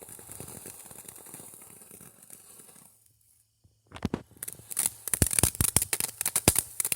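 Consumer firework fountain crackling: a faint fizzing crackle fades out, then after a brief gap a dense run of sharp, irregular crackles starts about four seconds in and grows loud.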